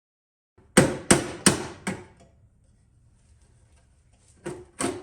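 Hammer blows: four quick strikes, each with a short ring, then two more near the end.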